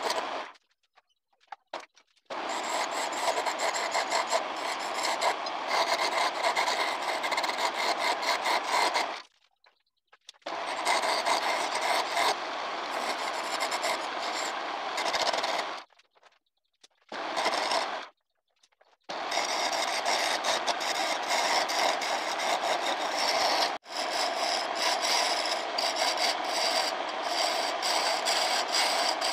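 Turning chisel cutting a spinning maçaranduba hardwood spindle on a wood lathe, a dense scraping, rasping sound. It comes in long passes of several seconds, broken by brief pauses where the tool is lifted off.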